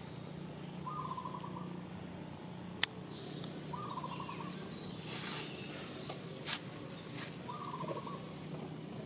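An animal's short trilled call, repeated three times about three to four seconds apart, each call well under a second long. A sharp click sounds about three seconds in, over a steady low hum.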